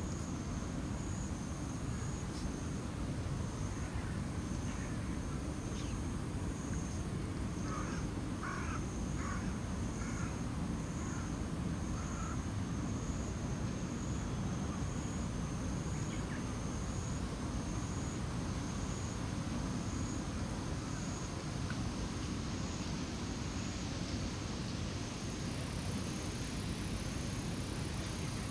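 A crow cawing several times, with a quick run of about five caws about eight seconds in, over a steady low background rumble and a high, evenly pulsing chirp.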